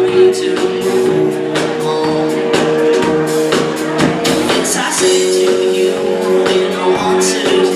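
Live band playing in a large hall: held chords ring out over steady drum and cymbal hits.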